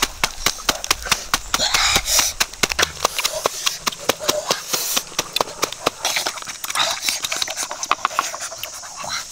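A rapid, irregular run of sharp clicks and knocks, several a second, over a steady hiss.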